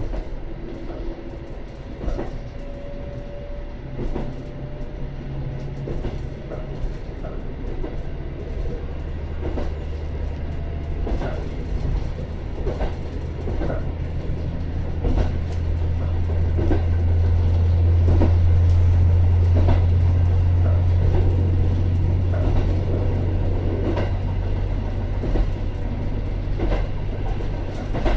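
Diesel railcar running on jointed track, heard from inside its rear cab. A low engine drone grows louder about a third of the way in and stays strong, while the wheels clack over rail joints about every second and a half.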